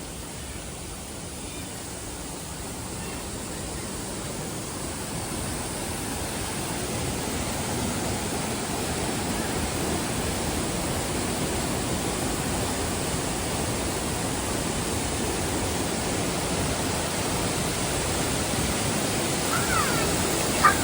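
Steady rushing noise like falling water, growing louder over the first several seconds and then holding steady.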